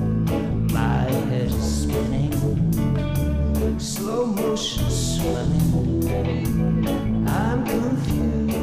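Band soundtrack music: guitar and bass over a steady beat.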